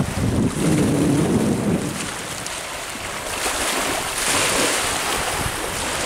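Wind buffeting the microphone, heaviest in the first two seconds, over the steady wash of small choppy waves lapping a lakeshore.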